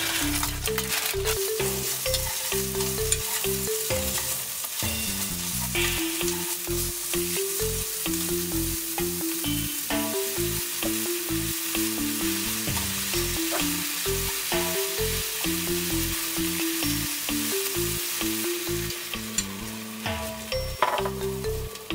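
Salmon and spinach sizzling steadily in hot oil in a frying pan while being stirred with wooden chopsticks. Background music plays over it.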